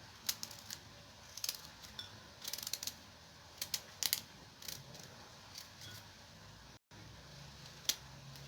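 Knife peeling a turnip: short, irregular scraping clicks as the blade cuts away the skin.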